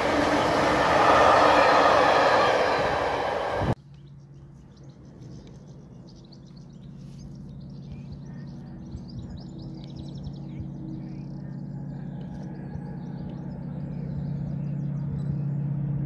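A freight train of empty flat wagons running past at speed, a loud rattling rumble that cuts off suddenly about four seconds in. Then birds chirp while a low steady drone of an approaching locomotive slowly grows louder.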